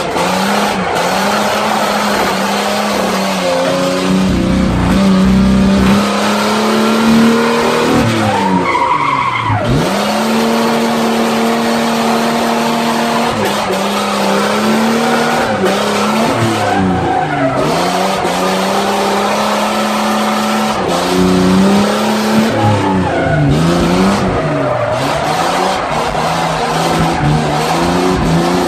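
Chevrolet Omega's engine held at high revs, dropping and climbing back several times, while its tyres squeal and skid through a drift, heard from inside the cabin.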